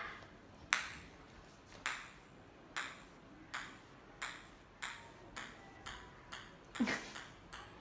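A small hard ball pinging against a tiled floor as two cats bat it back and forth: about a dozen sharp pings, coming quicker toward the end.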